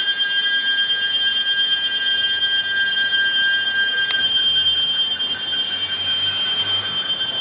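Cicadas singing in a loud, steady, high-pitched drone. About four seconds in, the lower tone turns into a rapid pulsing while the higher tone carries on.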